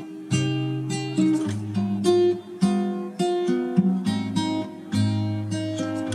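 Music played on acoustic guitar: plucked and strummed chords, a fresh one struck about every half second and left to ring.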